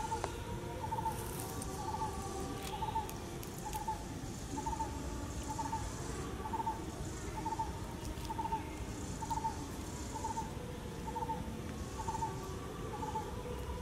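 A bird repeating a single short hooting note about once a second, evenly spaced, over outdoor ambience with faint intermittent insect buzzing.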